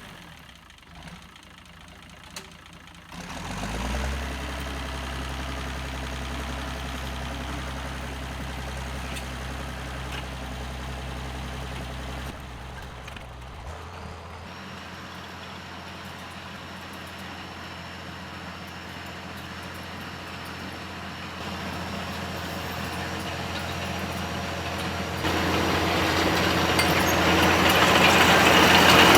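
1979 International TD9 bulldozer's diesel engine. It is low for the first few seconds, spins up about three seconds in, then runs steadily and gets markedly louder over the last few seconds.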